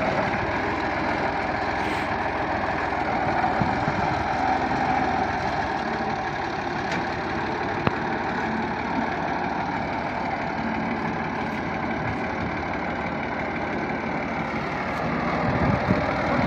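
A 3600-series farm tractor's diesel engine running steadily as it pulls a loaded trailer along a muddy track, with one brief click about eight seconds in.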